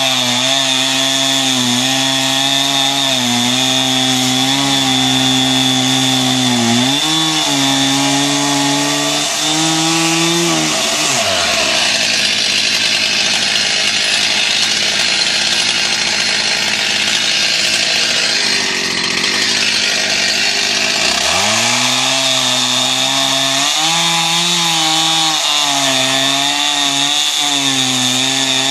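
Stihl MS 361 two-stroke chainsaw running hard, cutting through a large log. Its engine note wavers as the chain loads up and recovers. From about 11 s to 21 s the note gives way to a harsher, noisier sound before the steady engine note comes back.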